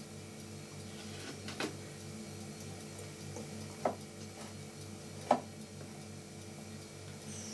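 A metal spoon clinking against a small glass jar of baby food as it is scooped, three short sharp clicks spread over several seconds, over a steady low hum.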